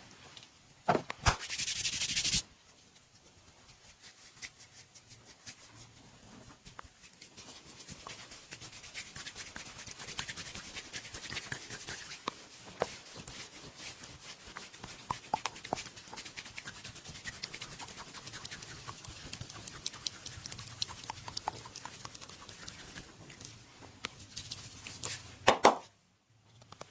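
Hands rubbing during a massage: a scratchy rubbing sound full of small crackles. Near the start come a couple of sharp clicks and a short loud hiss.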